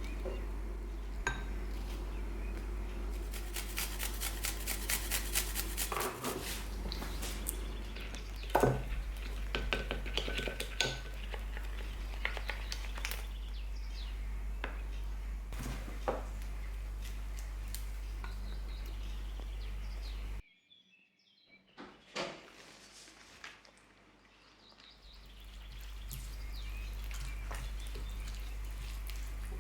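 Kitchen handling sounds: dishes and cutlery clinking and knocking, with a quick run of light clicks a few seconds in, over a steady low hum. The sound drops out suddenly for a few seconds about two thirds of the way through.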